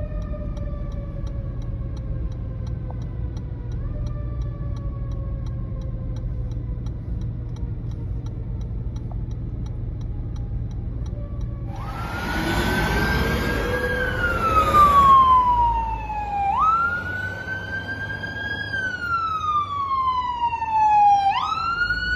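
Fire truck siren in a slow wail, each sweep sliding down in pitch over a few seconds, heard from inside a car over the low hum of its engine. About halfway through, a louder emergency-vehicle siren takes over, opening with a noisy blast. Its wail jumps up and then slides down roughly every four to five seconds.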